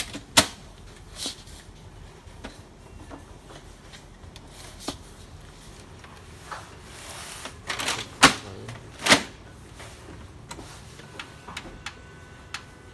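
Plastic housing and covers of an HP Color LaserJet Pro MFP M181fw laser printer being handled: a series of sharp plastic clicks and knocks, the loudest two about eight and nine seconds in, with a brief scraping rustle just before them.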